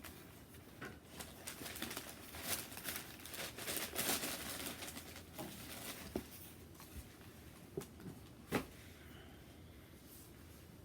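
Rustling and crinkling of paper and cardboard as sneakers are taken out of their box and handled, in irregular bursts, with a sharp knock about eight and a half seconds in.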